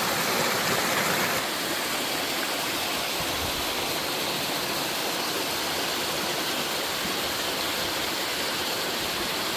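A waterfall pouring into a mountain stream, a steady rush of falling water. About a second and a half in it becomes slightly quieter and softer in the middle range, then holds steady.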